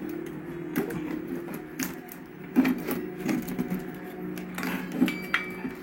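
Clicks and knocks of the plastic speaker housing and its parts being handled as the opened case is taken apart, about half a dozen separate knocks over a faint steady low tone.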